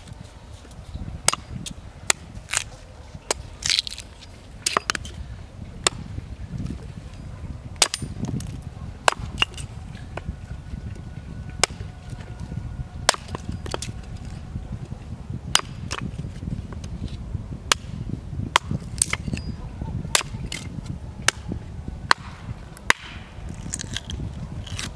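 Hatchet splitting small pieces of firewood into kindling on a wooden chopping block: sharp, irregular knocks of the blade striking and splitting the wood, about one a second.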